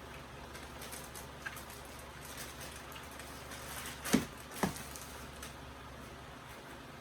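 Trading cards and papers being handled with faint rustling, and two short knocks about half a second apart a little past the middle.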